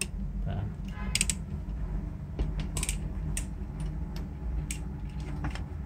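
Scattered metal clicks and creaks from a Lokring hand tool working compression fittings onto refrigerator copper tubing, over a steady low hum.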